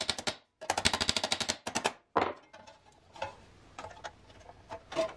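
Rapid hammer blows on a piece of galvanized sheet-metal heating duct clamped in a bench vise, bending a tab out. The blows come in quick runs of roughly eight to ten a second, the longest just over a second, then one more blow and a few faint clinks of the metal.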